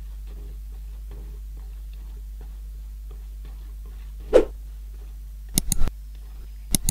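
Metal ladle stirring a thin sago and palm-sugar batter in an aluminium wok: faint scrapes and swishes over a steady low hum, with one short knock about four seconds in. A few sharp mouse-click sound effects come near the end.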